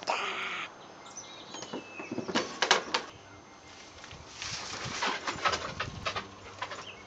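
Close rustling and brushing right against the microphone, with a run of sharp knocks and taps, as someone moves past just beside the camera: a sudden burst at the start, a cluster of knocks about two to three seconds in, and more rustling with taps from about four and a half seconds.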